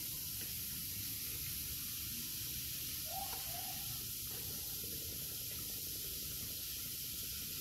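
A large bath bomb fizzing and dissolving in a tub of water: a steady, even hiss.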